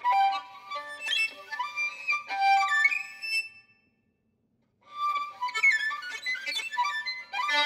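Solo violin played with the bow: quick, darting phrases of sharply attacked notes and pitch slides. The playing breaks off for about a second midway, then picks up again.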